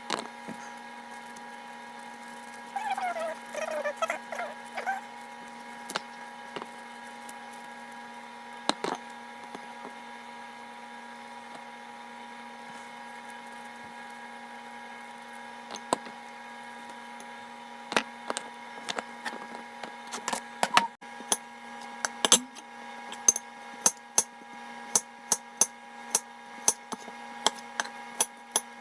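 Kitchen work sounds: scattered knocks and taps of utensils on hard surfaces over a steady electrical hum, with a brief squeak a few seconds in and a run of regular taps, about two a second, near the end.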